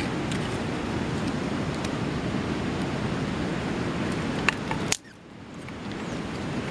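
Steady rushing outdoor noise, most likely wind buffeting the microphone. Two sharp clicks come a little past halfway, and right after them the noise cuts out suddenly and then fades back in.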